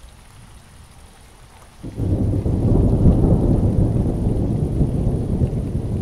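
Steady rain falling on wet pavement. About two seconds in, a loud, low roll of thunder starts suddenly and keeps rumbling over the rain.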